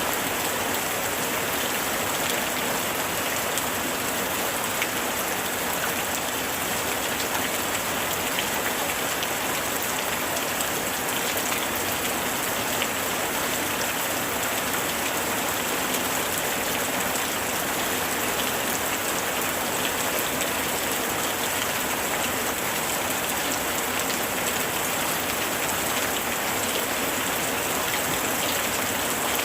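Heavy rain falling steadily, a dense even hiss of countless drops with faint individual ticks. It holds at one level throughout, with no thunder.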